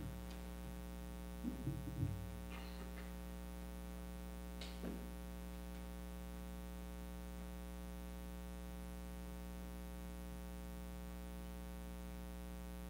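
Steady electrical mains hum with a thin buzz above it. A few brief faint noises come in the first five seconds.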